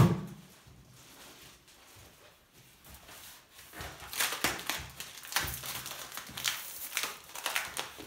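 A single sharp knock, then from about halfway a quick run of scraping and rustling as a polystyrene foam packing block is handled and rubbed.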